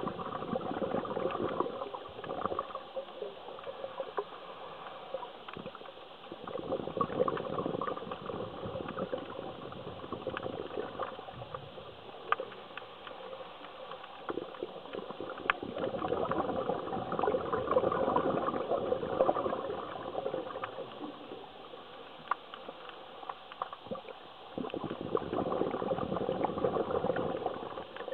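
A scuba diver's exhaled bubbles gurgling out of the regulator, heard underwater: four bubbling bursts of a few seconds each, several seconds apart, with quieter breathing stretches between.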